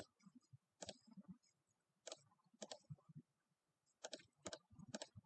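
Faint clicks of a computer mouse and keyboard, about seven short, sharp clicks spaced roughly half a second to a second apart.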